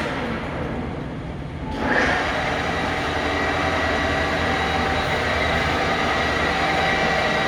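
Potisje metal lathe's spindle and headstock gearing running. For the first two seconds there is only a low hum; then the spindle starts up in reverse and the machine settles into a steady running noise with a high, even gear whine.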